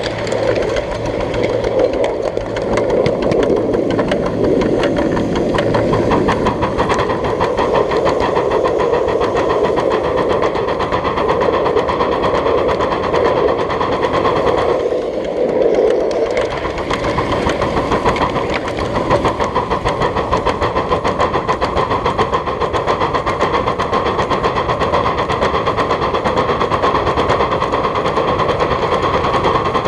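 1/8-scale live steam locomotive working, its exhaust beating in rapid, even chuffs that briefly fade about halfway through.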